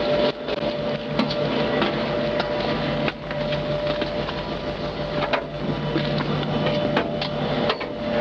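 A steady mechanical hum with a held tone, under a rushing noise and scattered knocks.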